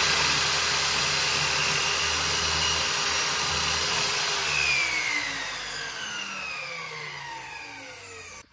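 Chicago Electric miter saw running at full speed as its blade is brought down through a length of wooden door casing. About four and a half seconds in the motor is released and the blade winds down with a falling whine, fading out near the end.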